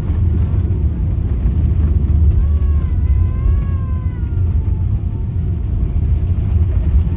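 Steady low rumble of an airliner cabin on the ground after landing. About two seconds in, a high wavering wail rises and falls for about two seconds.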